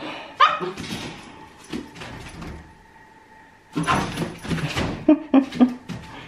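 Husky puppy pouncing on and batting a small cube treat around its playpen: two bursts of scuffling paws and clattering knocks, the second ending in three sharp knocks.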